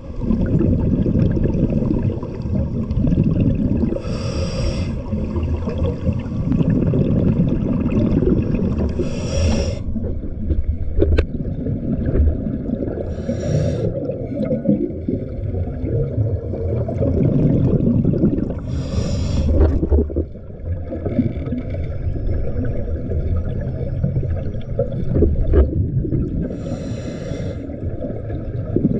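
Underwater noise heard through a GoPro's waterproof housing: a steady low rumble of moving water, broken five times, about every five seconds, by a brief hissing rush of scuba regulator exhaust bubbles.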